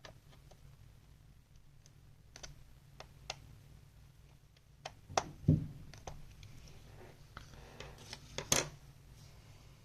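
Scattered small clicks and taps from the parts of an open laptop being handled during a CPU fan install, with a louder knock about five seconds in and another near the end.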